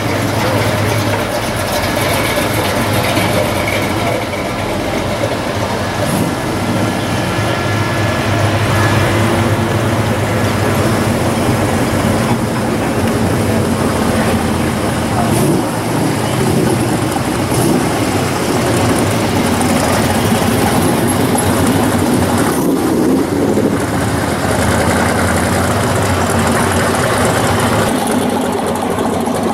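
Engines of classic American muscle cars and hot rods running at low speed as they drive past one after another, a steady unbroken engine sound.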